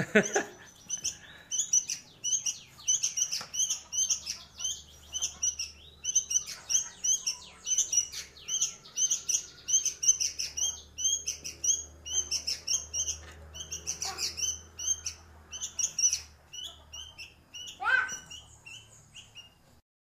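Fledgling sooty-headed bulbul (kutilang), about a month old, calling in quick high chirps, several a second, that run on and stop just before the end. This is a young bird's practice song; it is still learning to sing.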